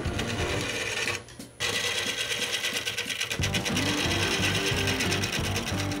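A bowl gouge cutting a spinning cherry burl blank on a wood lathe, making a fast, even rhythmic clatter as the tool meets the wood, with a brief drop about a second in. Background music with bass notes plays underneath.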